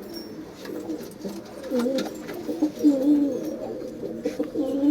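Domestic pigeons cooing in a loft, several low, wavering coos overlapping, loudest about three seconds in and again near the end.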